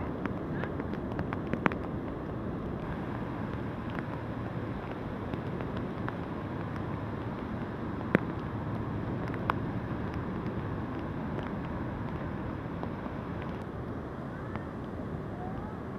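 Storm wind buffeting the microphone over the rush of high surf breaking on the beach: a steady, dense noise with a few sharp ticks, the loudest about eight seconds in.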